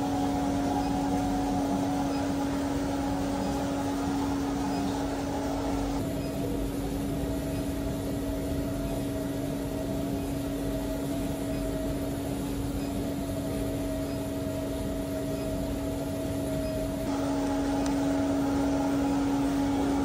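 Induction melting furnace running under load while metal melts in its crucible: a steady electrical hum with a few fainter higher tones above it.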